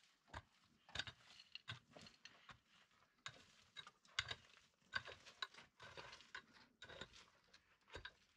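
A long-handled digging tool striking and scraping dry, stony ground, in irregular strokes about once a second.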